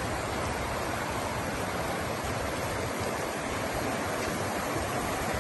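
Muddy floodwater rushing steadily down a wadi in spate after heavy rain.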